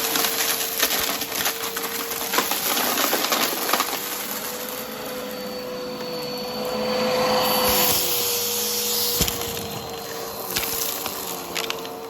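Vacuum cleaner with a spinning brushroll running over the floor: a steady motor whine over the rush of suction, with scattered crackles as debris is picked up.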